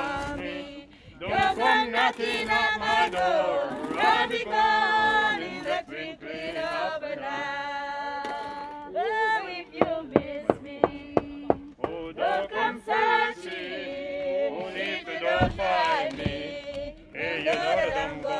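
Church congregation singing a hymn together, men's and women's voices. About ten seconds in comes a short run of sharp, evenly spaced beats, about three a second, for roughly two seconds.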